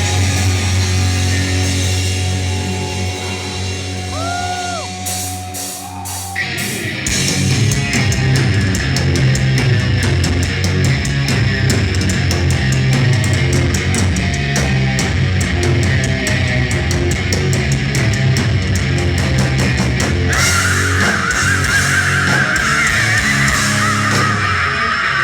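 Heavy metal band playing live through a club PA, recorded from the audience. A slow opening of held, droning notes with a couple of sliding guitar notes gives way about six seconds in to the full band: distorted guitars, bass and driving drums with cymbals. Near the end a high lead line rises above it.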